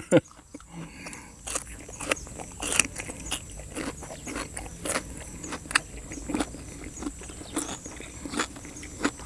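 A person chewing and biting boiled chicken feet close to the microphone: irregular short crunches and wet clicks.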